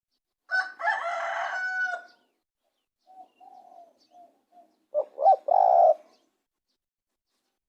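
Spotted dove cooing, soft short low coos in a series. Two much louder, longer calls from another bird break in, one about half a second in lasting over a second and another about five seconds in.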